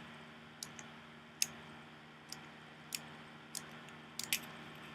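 Small, sharp clicks, about eight at uneven intervals, from a screwdriver working the spring-loaded flint-spring screw out of a Zippo lighter insert, over a faint low hum.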